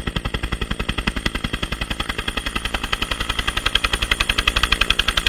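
Helicopter approaching to land, its main rotor blades chopping in a fast, even beat that grows louder in the second half as it nears.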